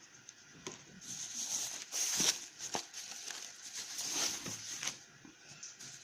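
Packaging rustling and crinkling as it is handled, with a few light clicks and knocks, from about a second in until about five seconds.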